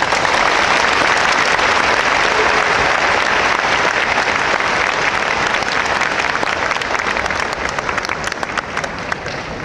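Audience applauding in a large sports hall: dense, steady clapping that starts abruptly and thins out near the end.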